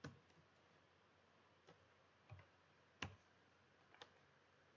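A few separate clicks of computer keyboard keys being pressed, about five of them with quiet room tone between, the loudest right at the start and about three seconds in.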